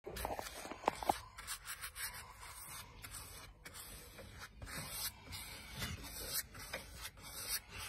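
Soft, repeated swishing strokes of a wide paintbrush's bristles brushing varnish onto wood, irregular in pace, with two light clicks about a second in.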